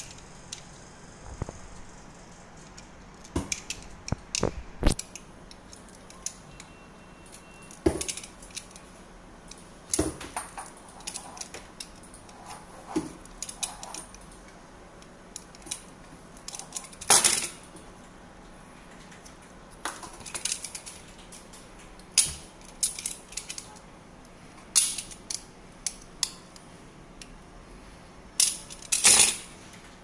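Irregular clicks, scrapes and small metallic clinks of hand work on coaxial cable: a utility knife cutting and scraping the LMR300 cable's jacket, and small N-connector metal parts being handled against the cable end.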